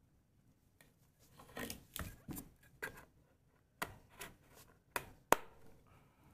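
Hands handling a plastic hair dryer on a hard counter: rubbing and rustling, then several sharp clicks and knocks, the sharpest a little past five seconds in. The dryer is not running.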